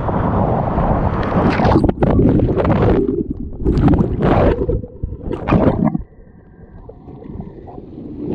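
Whitewater rapid rushing and splashing loudly around a whitewater kayak as it punches through the waves and is briefly plunged under, with several surging splashes. About six seconds in the noise drops away to a quieter, muffled wash.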